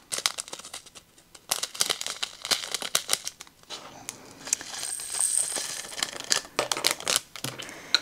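Small plastic bag crinkling and tiny resin diamond-painting drills rattling and clicking as they are poured into a plastic drill tray and shifted around in it.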